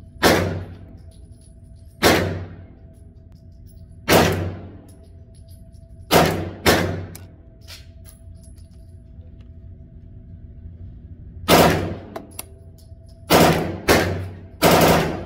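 CZ Scorpion EVO 9mm firing through a Franklin Armory binary trigger, which fires once on the pull and once on the release: about nine shots a second or two apart, with a quick pair near the middle and three faster shots near the end. Each shot is followed by a ringing tail.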